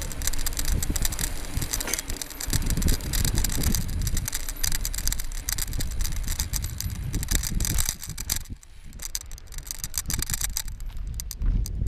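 Mountain bike rolling over stone paving, with the bike and its camera mount rattling and knocking over a low rumble. About eight seconds in the rattling eases as the bike runs onto grass.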